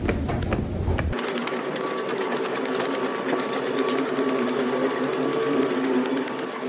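Footsteps on stone stairs. About a second in they turn into a fast, even clatter of steps that runs on steadily.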